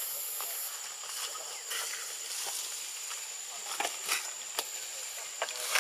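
Outdoor tree-canopy ambience: a steady high-pitched hum, like insects, over a soft hiss, with a few sharp clicks and rustles in the second half.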